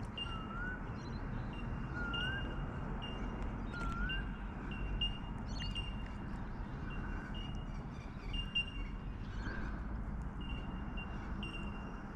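Birds calling: a short high note repeated about once a second, with a rising whistled note every couple of seconds in the first half, over a steady low rumble.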